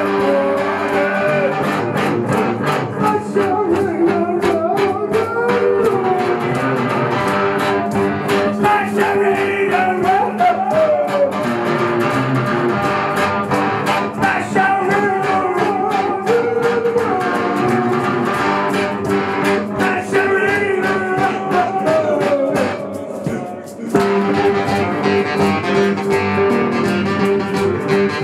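Live music from an acoustic guitar and an electric guitar played together, strummed steadily under a melody line that bends in pitch. The playing drops away briefly about 23 seconds in, then picks up again.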